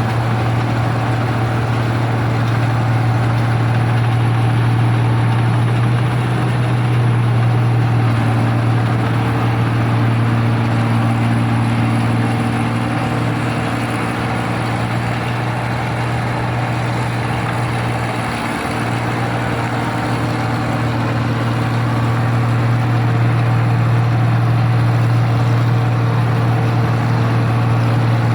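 New Holland 1545 combine harvester's engine running steadily with a strong, even low hum, dipping briefly about two-thirds of the way through.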